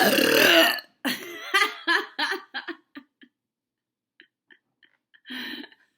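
A woman's long, loud forced burp, its pitch falling as it ends about a second in, followed by a run of short, choppy bursts that grow shorter and fainter over the next two seconds.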